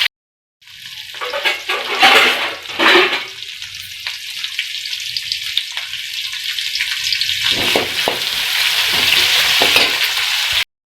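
Sliced shallots and onion sizzling as they fry in hot sesame oil in a pan, being stirred, with louder scrapes of the stirring about two and three seconds in. The hiss grows slowly louder as the onions sauté.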